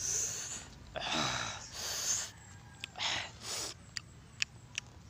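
A man's sharp hissing breaths, air sucked in and blown out in about five short bursts, followed near the end by a run of small mouth clicks and smacks: his reaction to the burn of the chili.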